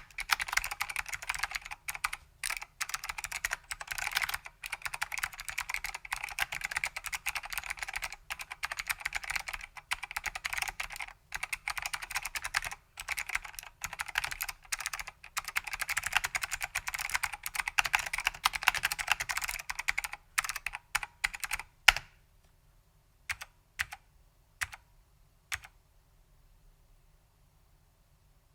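Fast, continuous typing on a vintage Datacomp DFK-191 keyboard with stock SKCM White Alps switches and ABS keycaps. After about twenty seconds the keystrokes slow and thin out, with one sharp, louder keystroke, then only a few separate keypresses with quiet gaps between.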